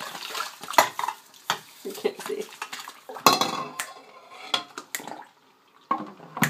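Dishes, glassware and cutlery clinking and clattering during washing up by hand, a string of sharp knocks with the loudest about a second in and again about three seconds in.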